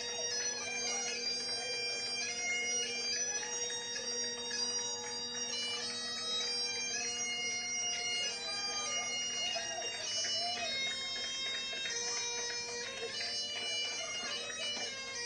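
Bagpipe music: a melody of short, changing notes over a steady drone.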